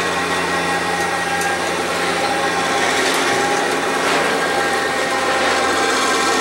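A 1,500-lb mains-powered electric winch running steadily with a humming motor as it hauls a wooden platform on casters along its rails by cable.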